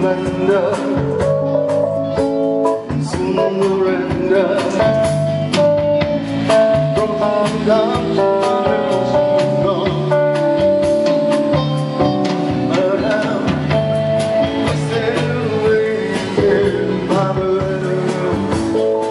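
Blues-style band music with electric guitar, drums and singing.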